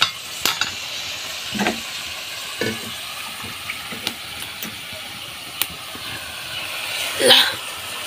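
A chicken curry bubbling and sizzling steadily in an iron karahi over a wood fire, with scattered sharp clicks through it. A brief louder sound comes about seven seconds in.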